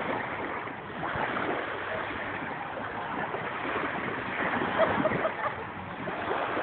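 Dog digging in beach sand with its front paws, a continuous scraping and scuffing of sand over a steady rushing background.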